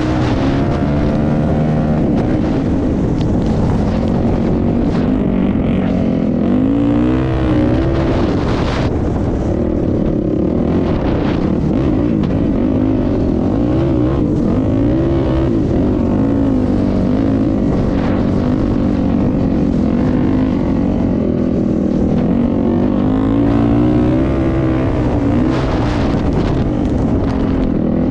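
A vehicle engine running throughout, its pitch rising and falling as the engine speeds up and eases off.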